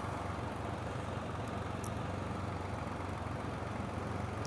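Can-Am Spyder motorcycle engine idling steadily.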